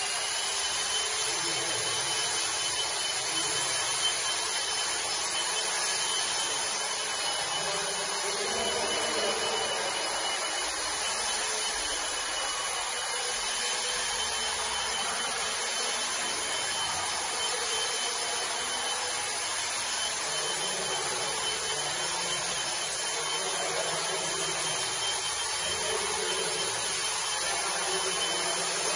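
A steady mechanical noise with a thin high-pitched whine over it.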